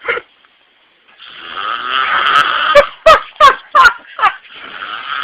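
A man snoring loudly in his sleep. A short snort, a pause of about a second, then a long snore breath that breaks into four or five sharp, loud snorts before the next snore begins near the end.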